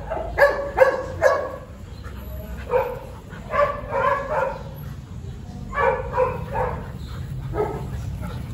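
Golden retrievers barking during rough play, short sharp barks coming in quick clusters with pauses between.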